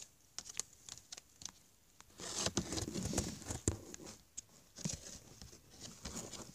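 Light clicks and taps of a plastic toy horse figure being moved by hand over a cardboard floor: scattered at first, then a denser stretch of tapping and rustling in the middle, then scattered again.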